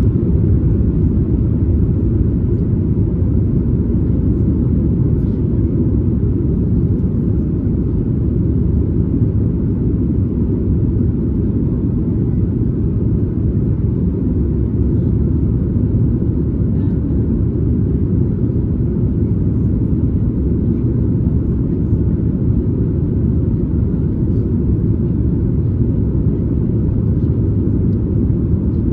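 Cabin noise of a Boeing 737 MAX 8 in flight, heard from a window seat just behind the wing: the CFM LEAP-1B engines and the airflow over the fuselage make a steady, even low rumble.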